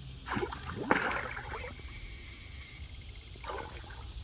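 Water splashing as a small alligator moves in the water: two splashy bursts in the first couple of seconds, the louder one starting sharply about a second in, then a smaller splash near the end.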